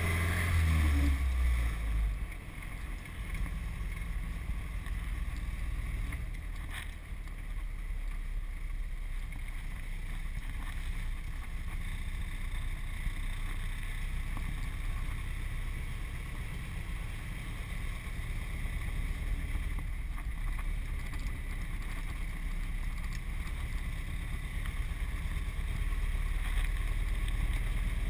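Hopped-up four-cylinder engine of a 1929 Ford Model A coupe, fitted with twin Stromberg carburettors, running as the car is driven, heard from inside the cabin as a steady low rumble. It is louder for the first two seconds, then settles.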